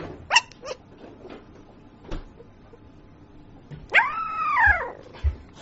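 A sleeping puppy crying out while it dreams: a few short high yelps near the start, then one long whining howl about four seconds in that rises and then falls in pitch. A couple of soft thumps follow near the end.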